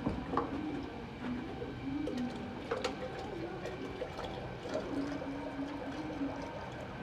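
Engine oil draining from the sump of an Audi Q7 3.0 diesel into a pan. Over it runs a wavering low tone that rises and falls, with a couple of sharp clicks.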